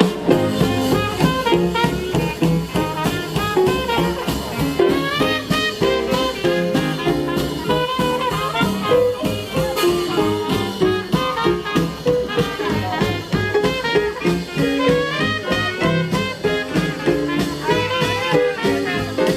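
Traditional New Orleans jazz band playing an upbeat swing tune, led by trumpet over a steady beat.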